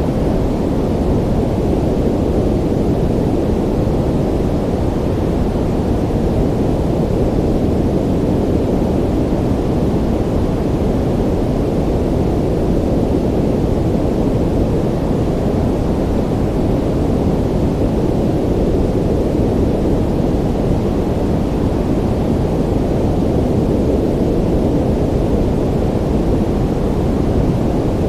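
Ocean ambience: a steady, deep rush of sea noise with no separate wave breaks standing out, only slow gentle swells in level.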